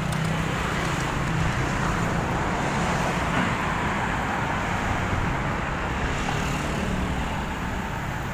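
Steady road traffic noise: a constant wash of engines and tyres from vehicles on the highway.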